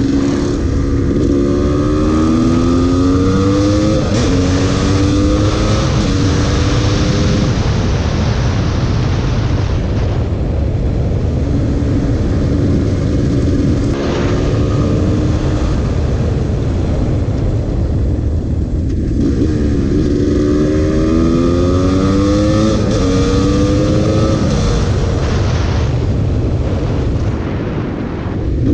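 GasGas EC300 supermoto's single-cylinder two-stroke engine under way, accelerating up through the gears near the start and again about twenty seconds in, its pitch climbing in steps with each gear, and cruising more steadily in between. A steady low rumble of wind on the microphone runs underneath.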